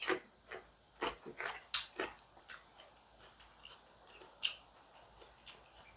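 Raw red onion being chewed: a run of short, crisp crunches, thick in the first two seconds and then thinning out, with one sharper click about four and a half seconds in.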